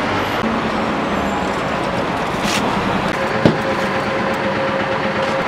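Steady road-traffic noise, with a single sharp click about three and a half seconds in.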